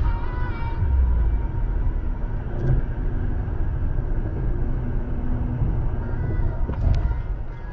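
Steady low rumble of road and engine noise inside a Mercedes-Benz car cruising at highway speed, with a brief knock near the end.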